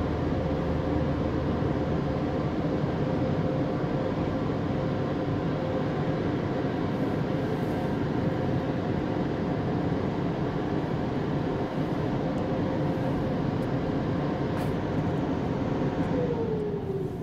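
Touchless automatic car wash equipment running steadily with a constant hum over a spraying rush, heard from inside a waiting car. Near the end the hum winds down with falling pitch and the sound drops, as the machine's cycle for the car ahead ends.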